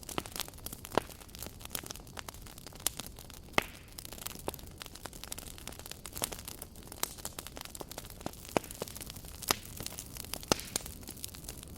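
Campfire crackling: irregular sharp pops and snaps of burning wood, a few a second, over a steady soft rush of the flames.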